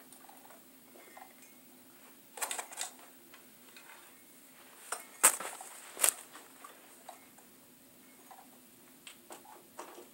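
Scattered sharp clicks and light clatters, like small hard objects being handled. The two loudest come a little past the middle, about a second apart, over a faint steady hum.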